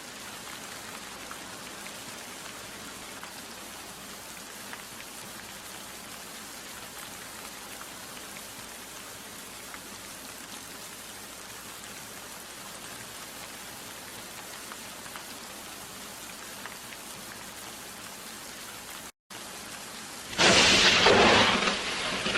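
Steady rain falling, an even hiss of many drops. Near the end, after a brief break, a thunderstorm starts with loud thunder over the rain.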